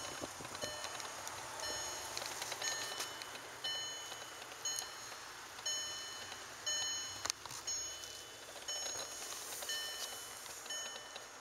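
A Volkswagen Rabbit's in-car warning chime repeating about once a second, each chime a short, bright tone, over light rustling from handling inside the cabin.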